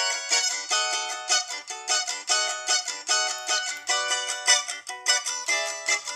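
Cavaquinho strummed in a quick, steady rhythm, several strokes a second, playing the chords of an A major sequence: F#7, then Bm about four seconds in, then E7 near the end.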